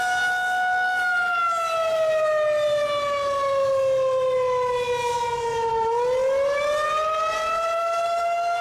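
Federal Signal 2001-130 outdoor warning siren sounding the wailing attack signal. Its tone holds high, slides down over about five seconds, then climbs back up over about two seconds.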